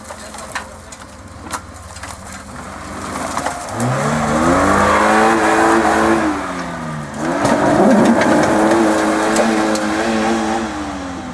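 Off-road 4x4's engine revving hard in two long pulls: the pitch climbs and holds high for about three seconds, drops briefly, then climbs and holds again before falling away near the end.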